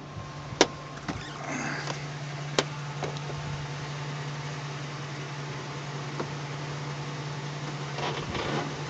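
2004 Ford F-150 running with a steady low hum, a few sharp clicks in the first three seconds, and two brief rubbing sounds, about a second and a half in and near the end. This is the rubbing noise heard while backing up and turning to the right, whose cause the owner cannot find.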